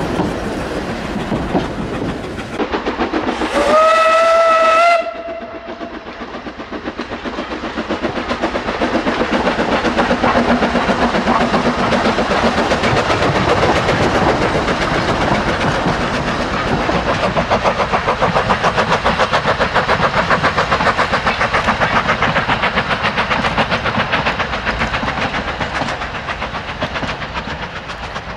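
Narrow-gauge steam locomotive blows one short whistle about four seconds in, then runs with fast, steady exhaust beats that ease off near the end.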